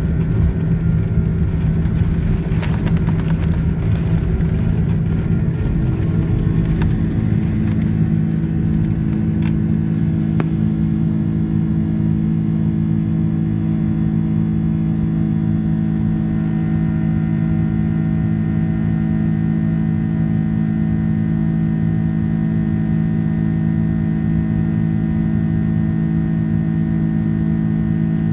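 Cabin noise of a Cathay Pacific Airbus A330 on its takeoff. A rough rumble and rattle over the first eight seconds or so gives way to a smooth, steady engine drone with constant humming tones, as the wheels leave the runway and the jet climbs.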